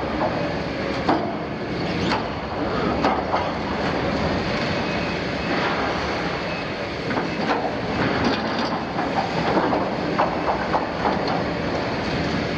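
Liebherr 974 demolition excavator running under load while its demolition shear works torn sheet-steel tank wall: a steady machine din with sharp metal clanks every second or two and occasional screeching of steel.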